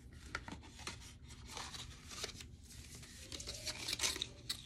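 Cosmetics packaging being handled: a string of short rustles, crinkles and scrapes.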